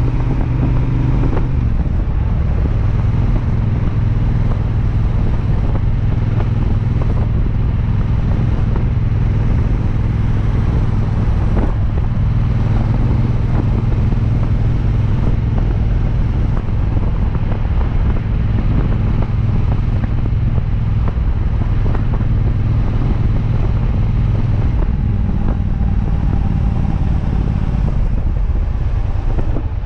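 2022 Triumph Bobber's 1200 cc parallel-twin, breathing through a DNA filter and exhaling through stock mufflers with a Motone X-pipe, running steadily while the bike cruises on the road. Its note shifts about a second and a half in and again near the end.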